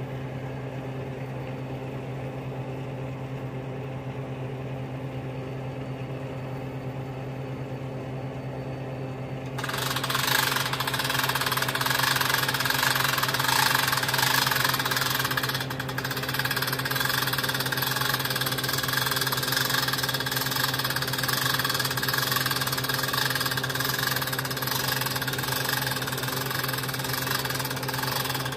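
Idling diesel engine of a Freightliner roll-off truck, running steadily. About ten seconds in, a louder, harsher noise joins it and keeps going.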